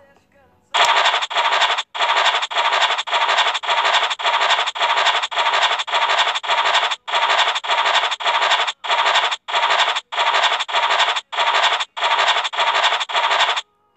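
Online scratch-card game's scratching sound effect, a hissy scrape repeated about twice a second as each box is uncovered in turn, some two dozen scrapes in a row that stop just before the end.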